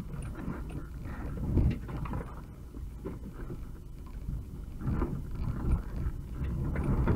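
UAZ 2206 van driving slowly over a rough forest dirt track, a steady low engine-and-drivetrain rumble broken by irregular knocks and jolts from the body as it rides over bumps.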